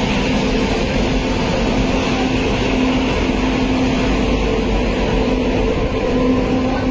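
WAP-7 electric locomotive's cooling blowers and equipment running steadily: a loud, even hum with a low drone, unchanging throughout.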